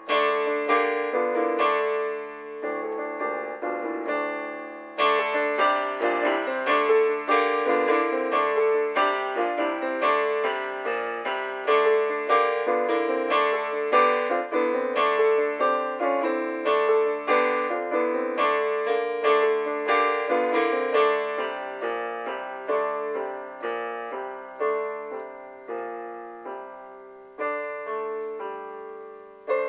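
Piano music of a home composition played back from music software: a steady stream of notes over a repeated middle note. It fills out about five seconds in and thins toward the end, with a short break before a fresh chord.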